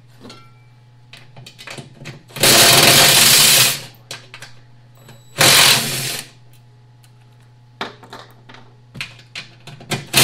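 DeWalt cordless driver running in bursts, backing out bolts: a burst of about a second, a shorter one a few seconds later, and another starting at the very end. Small metal clinks of bolts and tools fall between the bursts, over a steady low hum.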